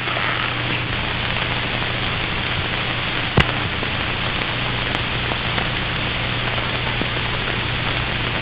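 Steady hiss with a low hum under it, and a sharp click about three and a half seconds in: the background noise of an old film soundtrack between lines of narration.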